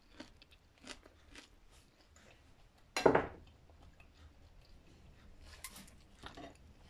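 Kitchen handling noise: soft scattered clicks and taps, with one louder knock about three seconds in, as a ceramic bowl of dressing is moved off a wooden chopping board.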